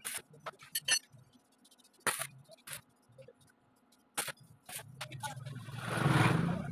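Short, sharp metallic clinks and brief crackles of a stick (arc) welder as steel bars and rings are tack-welded into a window grill frame. From about five seconds in, a low rumble swells up, loudest just before the end.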